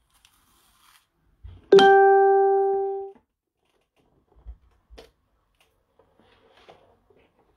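A single ringing musical tone, like a plucked string, starts sharply about two seconds in, fades for about a second and a half, then cuts off. Faint knocks come from card packs being handled on a tabletop.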